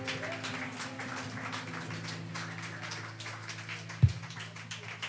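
Scattered applause from a small audience, thinning out into separate claps over a steady low hum. A single dull thump about four seconds in is the loudest sound.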